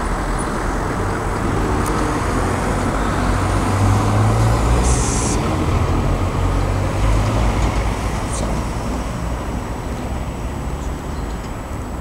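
Steady road traffic noise: a low rumble with a broad hiss, swelling a little about four to five seconds in and easing off toward the end.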